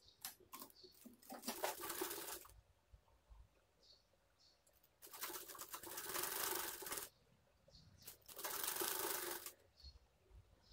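Sewing machine stitching lace onto a blouse sleeve in three short runs of one to two seconds each, with a few light clicks between runs.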